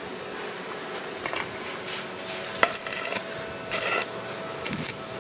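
Stick welding arc from a Ptools ZX7-270 mini inverter welder, struck against steel in several short crackling bursts, the longest and loudest near the end.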